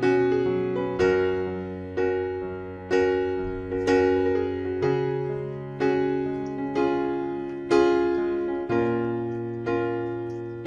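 Background piano music: slow chords struck about once a second, each left to ring out over a held bass note.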